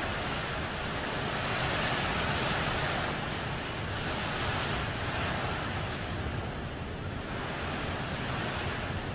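Hurricane wind and rain outside: a steady rushing noise that swells and eases in gusts.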